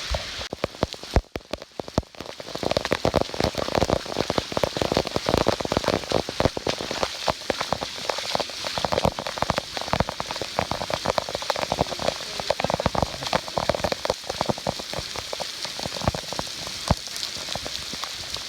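Rain falling, with a dense, uneven patter of drops striking close by. The patter is sparse for about the first two seconds, then thickens and holds.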